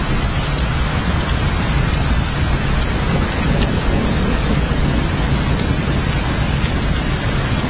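Steady, heavy rain, with scattered sharp drop ticks over the hiss and a constant low rumble underneath.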